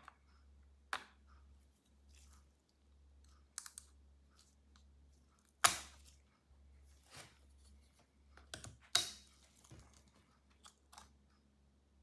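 Scattered small clicks and snaps from a DDR5 SODIMM laptop memory module as its slot's retaining clips are spread and the module is pulled out, the loudest about six and nine seconds in.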